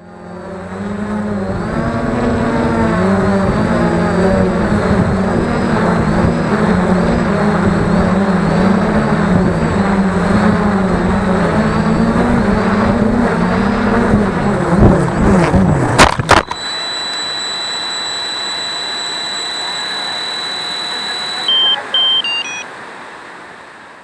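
Small camera drone's electric motors and propellers humming, the pitch wavering as the motor speed changes. About fifteen seconds in there is a burst of sharp knocks as the drone crashes. The hum stops and a steady high whine remains, with a few short beeps descending in pitch near the end.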